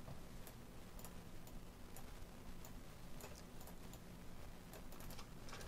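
Faint, irregular clicks of a computer mouse over a low steady hum.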